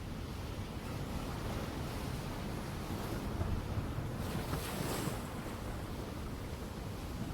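Ocean waves breaking and washing on a shore over a steady low rumble, with one wave surging into a brighter hiss about four to five seconds in.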